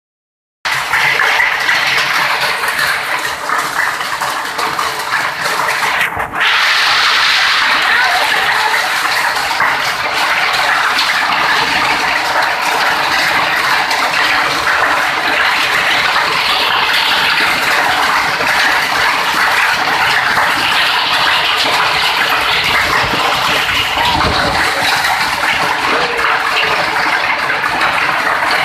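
Heavy rain mixed with hailstones pelting down on concrete and corrugated metal roofs, a loud, dense, steady hiss. It dips briefly about six seconds in, then continues as loudly.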